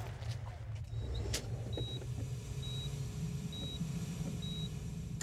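Low, steady vehicle engine and road rumble inside an ambulance, with a sharp clack about a second and a half in. From about a second in, a short high electronic beep repeats roughly once a second.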